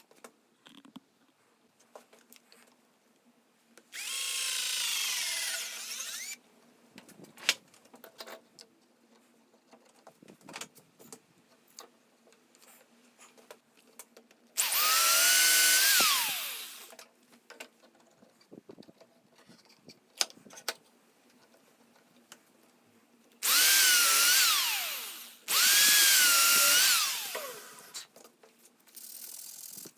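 Power drill running in four short bursts of about two seconds each, its motor pitch dropping away as each burst stops, with small knocks and clicks of handling between them.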